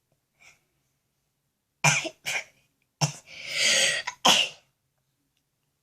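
A young girl coughing in short explosive bursts: three quick ones about two seconds in, then a longer drawn-out one and a last sharp one a second later. The coughs come as she tries to force a sneeze with Vaseline-coated cotton swabs in her nose.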